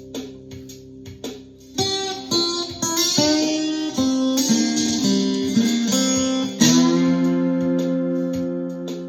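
Ovation Koa thinline acoustic-electric guitar in open C tuning played with a slide. Soft held notes give way, about two seconds in, to plucked notes that glide up and down in pitch. A loud full chord is struck about two-thirds through and left ringing.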